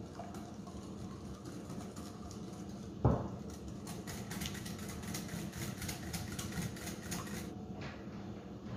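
A single dull knock about three seconds in, then a wire whisk clicking rapidly against a glass mixing bowl for several seconds as egg-yolk batter is whisked, over a steady low hum.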